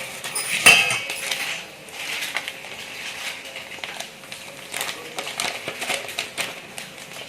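A spoon scraping and clinking against a container as ashwagandha powder is scooped out and measured, with a sharp clink a little under a second in and scattered small scrapes and taps after.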